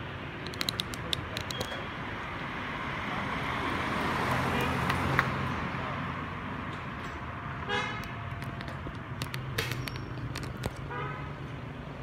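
Street traffic: vehicles passing on the road, with a swell of passing-vehicle noise around four to five seconds in and a few sharp clicks near the start. A vehicle horn toots briefly about eight seconds in and again near eleven seconds.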